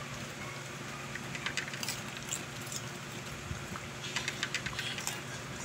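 Dog crunching and chewing pieces of raw pechay (Chinese cabbage) stem off a plate: runs of small crisp crackles, bunched around two seconds in and again near the end.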